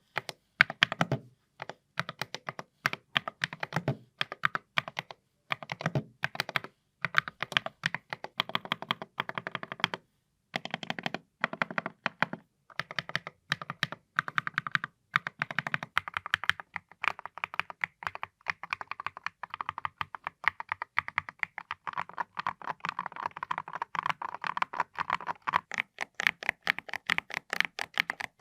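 Typing on a Keychron Q16 HE 8K keyboard: ceramic keycaps striking on magnetic switches, clicking in bursts with brief pauses. The keystrokes become a fast, nearly continuous run in the second half.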